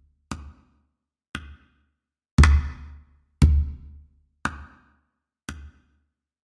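Intro music made of single heavy drum hits, about one a second, each a deep thump with a short fading tail; the third and fourth hits are the loudest.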